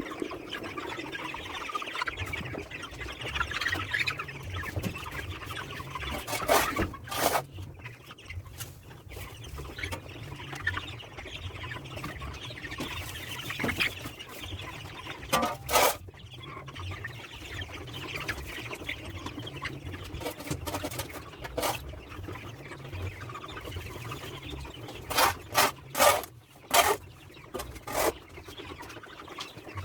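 A flock of chickens clucking and calling steadily. Short, loud knocks or scrapes stand out over it: two about six seconds in, two near the middle, and a quick run of four or five near the end.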